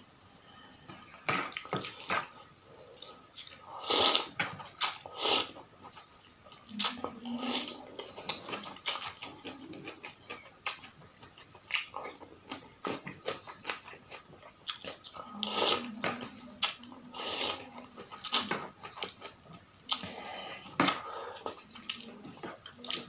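Slurping and chewing of noodles in soup, in irregular wet bursts.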